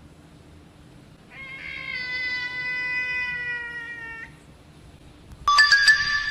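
A domestic cat gives one long, drawn-out meow of about three seconds, falling slightly in pitch. Near the end a sudden, louder, harsher cry cuts in.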